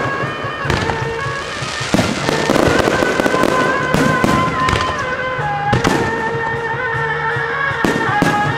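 Aerial firework shells bursting overhead: about five sharp bangs a second or two apart, some followed by crackling.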